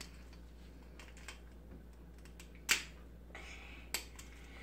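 A few sharp clicks and taps from a glass spice shaker being handled and shaken over a bowl while pepper is sprinkled on beaten egg. The loudest click comes about two and a half seconds in and another just before the end, over a faint low hum.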